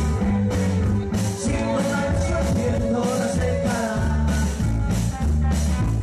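Live band playing upbeat rock-and-roll style music: electric guitar and electric bass over a drum kit keeping a steady beat.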